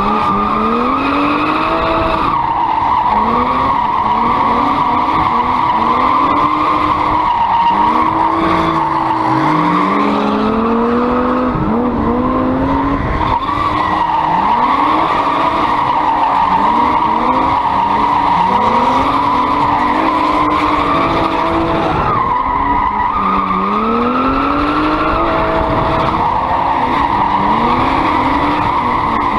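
BMW E36 Compact's swapped-in 2.8-litre straight-six revving up and down again and again in a drift, over a steady, high tyre squeal.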